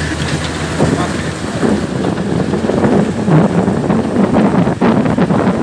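A 1973 Jeep's BF-161 inline-six engine pulling under load as it drives over a rough dirt track, with irregular knocks and rattles from the vehicle and wind noise on the microphone.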